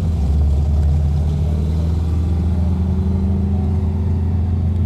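V8 engine of an HDT VH Commodore Group 3, heard from inside the cabin, pulling steadily at parade-lap pace, its pitch rising slowly and evenly.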